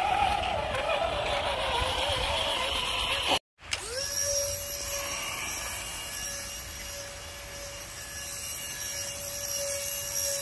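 Background music for the first few seconds, cut off abruptly. Then a 1/10-scale RC crawler's small electric winch motor whines at one steady pitch as it winds in its line.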